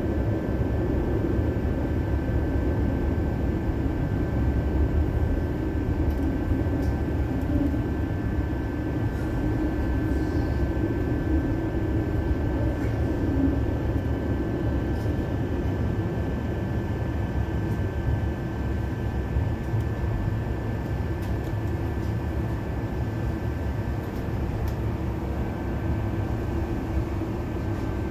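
City tram running along its rails, heard from inside the car: a steady low rumble of wheels and running gear with a faint steady high whine over it, a little quieter toward the end.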